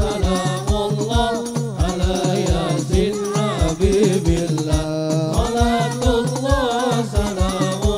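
A boy singing a Javanese sholawat song solo into a microphone, his melody wavering and ornamented, over hand drums beating a quick, steady rhythm with a sustained low accompaniment.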